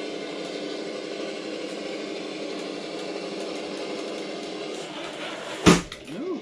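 Traxxas TRX-4 RC crawler's electric motor and gear drive whining steadily as it climbs a steep board, then a loud crash near the end as the truck falls back off the slope to the floor. A brief whine rising and falling in pitch follows the crash.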